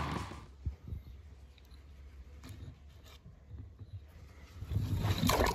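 Light handling of a plastic toy monster truck on a glitter-foam board: scattered soft clicks and taps, then a louder rustling stretch about five seconds in as it is moved along.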